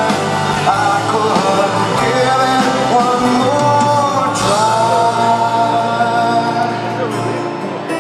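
Live rock band playing a slow song: a male lead singer holds long notes over acoustic guitars, heard from the audience in an arena. A high hiss comes in about halfway through.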